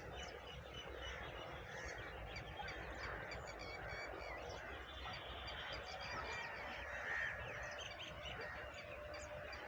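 Faint morning chorus of many birds chirping and calling over a steady outdoor hush.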